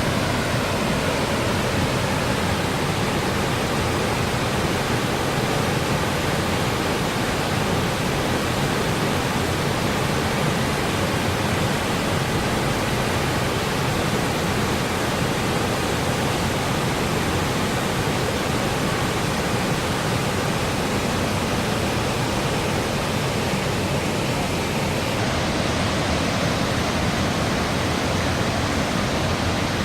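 Cumberland Falls, a large river waterfall, giving a steady, loud rush of falling water.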